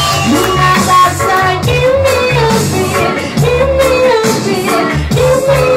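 Woman singing reggae live into a microphone over a sound-system riddim with a heavy, rhythmic bass line.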